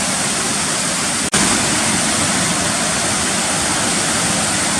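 Steady, loud rushing of a roughly 30-foot waterfall in full flow, close to the microphone, with a split-second dropout just over a second in.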